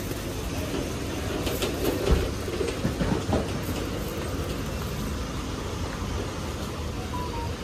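Steady rumble of street traffic, with a thin plastic produce bag crinkling and a few knocks between about one and a half and three and a half seconds in.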